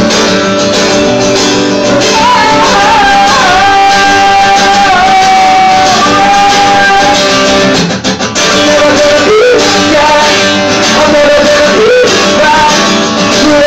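Live solo performance: a man singing over a strummed guitar, holding one long note in the first half. The sound dips sharply for a moment about eight seconds in, then the strumming and singing carry on.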